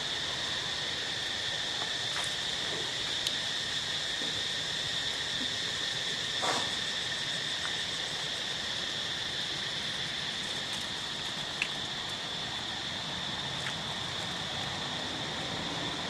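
Steady, high-pitched drone of insects, with a few faint clicks and one short sharper sound about six and a half seconds in.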